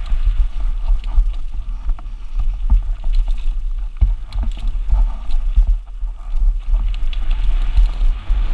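A downhill mountain bike running fast over rough dirt trail and rollers: a constant low wind rumble on the camera, with frequent knocks and rattles from the bike over bumps.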